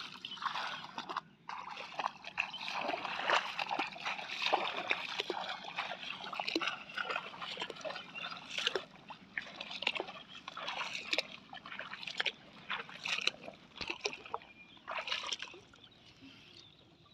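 Irregular splashing and sloshing in shallow muddy water as a person wades and handles a bamboo plunge-basket fish trap, dying down near the end.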